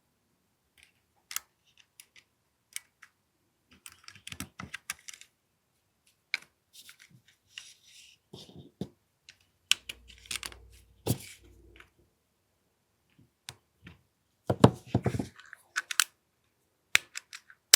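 Scattered sharp clicks, snaps and rattles of an AAP-01 gas blowback airsoft pistol and its small parts being handled and its action worked, with a louder cluster of knocks and clicks about three quarters of the way through.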